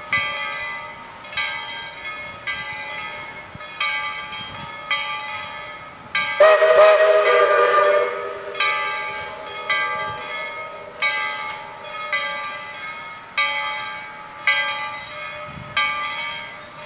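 Steam locomotive bell ringing steadily, one stroke about every second, with a sudden blast of the steam whistle about six seconds in that lasts a second and a half and is the loudest sound.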